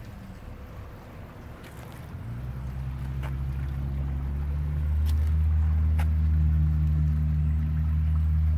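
A low engine-like drone that swells over a few seconds, then runs steadily, shifting slightly up in pitch about five seconds in, with a few faint clicks.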